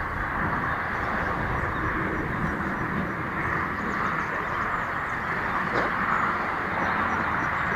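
Steam train going away out of sight, heard as a steady rushing noise with a low rumble.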